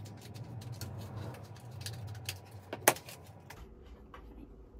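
Wooden loom side frames being handled: scattered small clicks, taps and rustling, with one sharp knock a little under three seconds in.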